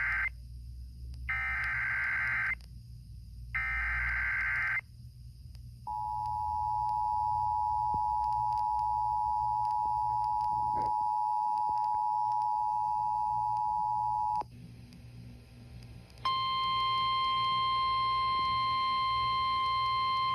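Emergency Alert System broadcast tones on FM radio: the end of one SAME header data burst and two more, each about a second long with a harsh, screeching sound, then the eight-second two-tone EAS attention signal, steady and even. About two seconds after it stops, a single steady tone starts, the NOAA Weather Radio 1050 Hz warning alarm tone relayed ahead of the severe thunderstorm warning.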